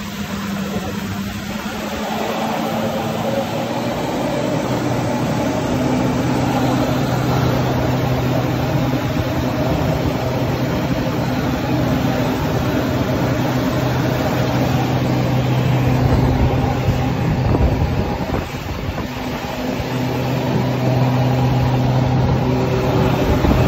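Jet ski engine running at speed with a steady hum over the rush of its wake and spray. The engine tone drops away for a few seconds about three-quarters of the way through, then comes back.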